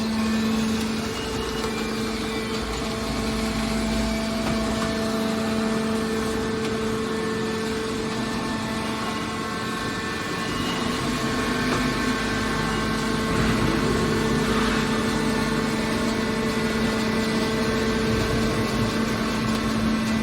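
Hydraulic metal baler running, its motor and hydraulic pump giving a steady hum with a constant pitch, the machine noise growing somewhat busier about halfway through.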